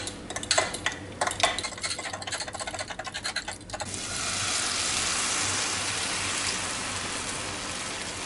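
Eggs whisked in a glass jug, a metal utensil clicking rapidly against the glass. About four seconds in, the beaten eggs hit a hot frying pan of sliced vegetables and sizzle steadily.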